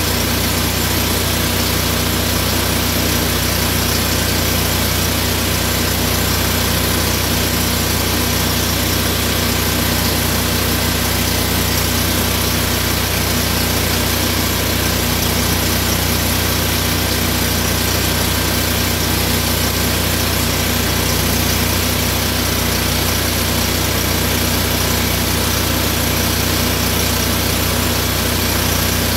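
An engine idling steadily at an even speed, with a constant hiss over it and no change throughout.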